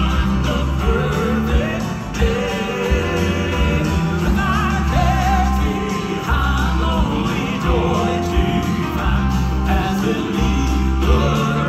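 Male gospel quartet singing the song in close harmony into microphones, with piano and band accompaniment.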